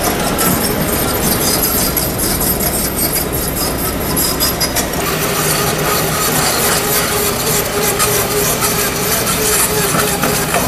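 Kobelco SK200 hydraulic excavator's diesel engine running under load as it digs and swings a bucket of earth, with scraping and rattling from the bucket and tracks. A steady whine joins about halfway.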